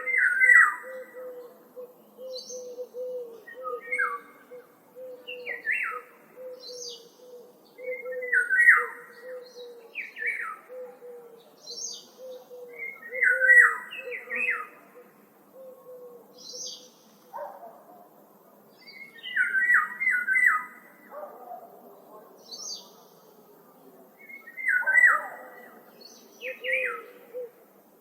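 Several wild woodland birds singing and chirping in short repeated phrases every second or two, over a low soft note that repeats about twice a second.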